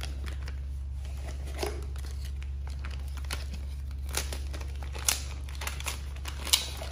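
Plastic protective bag crinkling as it is handled around a drone body, with scattered sharp crackles, the loudest about five and six and a half seconds in. A steady low hum runs underneath.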